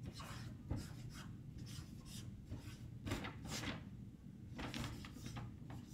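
Felt-tip marker writing on a paper chart pad: a string of short strokes, about two a second, as letters are drawn.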